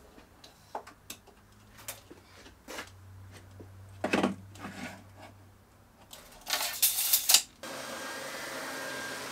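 Clicks and knocks of a tape measure being pulled out and handled, with a loud rattle of about a second near the end. Then the Triton oscillating spindle and belt sander, set up as a belt sander, suddenly heard running steadily with a faint whine over its motor noise.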